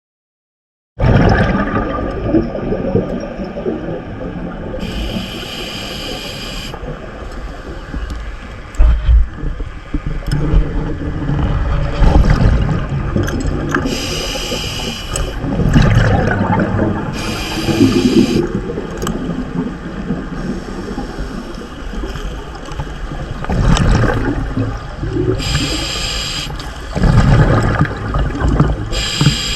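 Underwater sound of a scuba diver breathing through a regulator: a hissing inhalation every few seconds, each lasting a second or two, alternating with louder bubbling exhalations, over a constant rumble of moving water. It starts abruptly about a second in.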